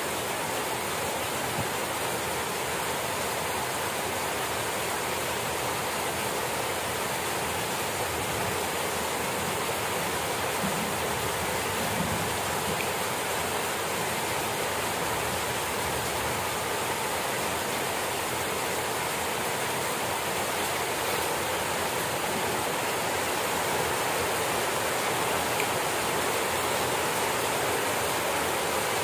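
Steady rain falling on grass and leaves, an even, unbroken hiss that grows slightly louder in the last few seconds.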